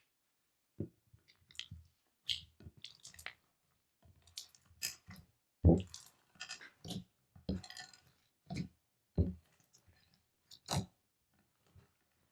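Slime being squeezed and pressed by hand: irregular wet squishes and clicking pops, the loudest a little before halfway through.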